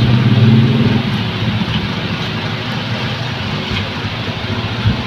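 Steady, loud rushing noise with a low engine-like hum, stronger in the first second, from a running motor.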